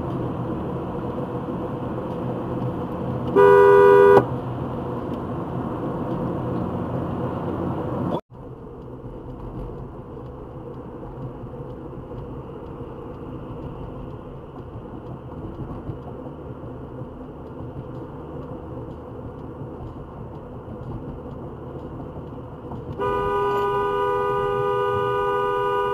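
Car horn sounding twice: a loud blast of under a second a few seconds in, then a longer held blast of about three seconds near the end. Between them, steady road and engine noise inside a moving car.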